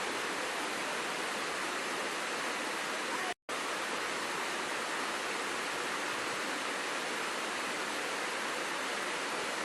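Waterfall rushing as a steady hiss of falling water, cut off by a brief gap of silence a little over three seconds in.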